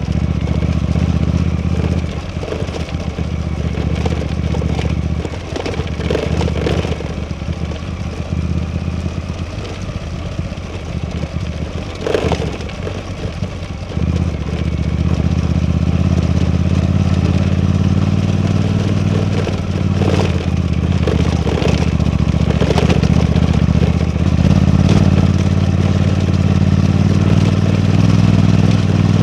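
Suzuki V-Strom 800DE's parallel-twin engine running under way, easing off briefly a couple of times early and then pulling louder and steadier from about halfway through. A few short sharp knocks cut in, the clearest near the middle.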